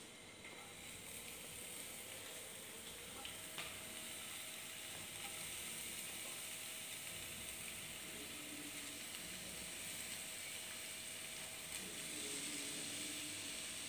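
Spice-coated pieces sizzling in hot oil in a nonstick frying pan as they are dropped in by hand a few at a time. The sizzle grows louder as the pan fills.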